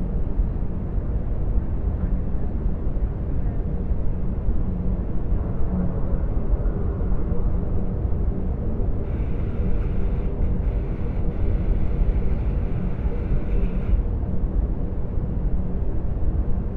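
Sci-fi sound-design ambience of a Venator-class Star Destroyer's bridge travelling through hyperspace: a steady deep rumble with a low hum. From about halfway in, a thin higher hiss with faint crackles joins it for some five seconds, then drops out.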